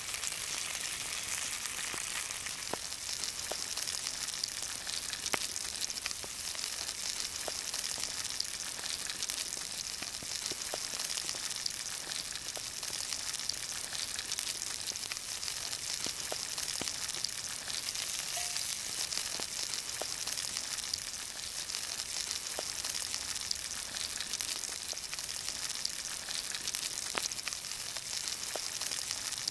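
Eel pieces sizzling in hot oil in a cast-iron skillet: a steady hiss with scattered small pops and crackles.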